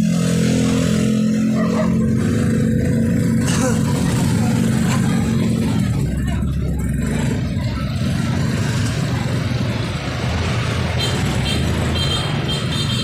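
Motor scooter engine running steadily as it rides close by, then the engines and tyres of a van and other vehicles rolling past slowly, with music playing in the background.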